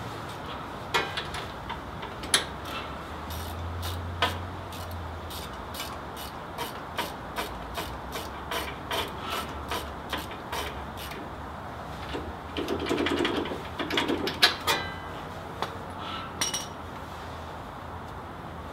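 Hand ratchet wrench clicking in short runs as a bolt on a riding mower's engine is tightened, with metal clicks and taps a few times a second and a busier burst of ratcheting about two-thirds of the way through.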